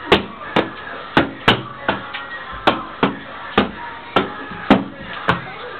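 A volleyball thudding repeatedly, about two hits a second in a slightly uneven rhythm, each hit sharp with a short ring after it.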